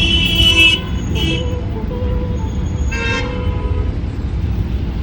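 Vehicle horns honking: a long toot ending just under a second in, a short one right after, and another about three seconds in. A steady low engine rumble runs underneath.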